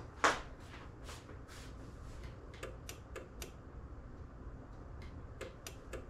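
Sharp clicks from the Liftmaster garage door opener's programming buttons and logic board during travel-limit programming: one louder knock about a quarter second in, then scattered clicks, a quick run of four around the middle and a few more near the end, over a low steady hum.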